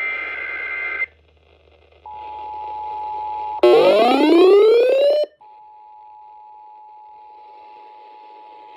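Emergency Alert System signals from a broadcast. First comes a second-long burst of data tones (the end of the digital alert header), then the steady two-tone attention signal. About three and a half seconds in, a loud rising whoop breaks in for about a second and a half before the two-tone signal resumes.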